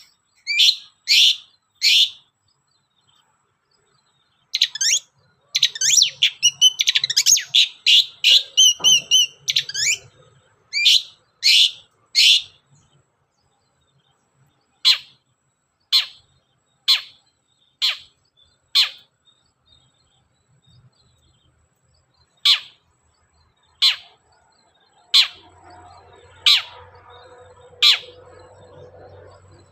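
Long-tailed shrike (cendet) singing in sharp, high notes: a quick dense run of phrases for several seconds early on, then single calls spaced about a second apart.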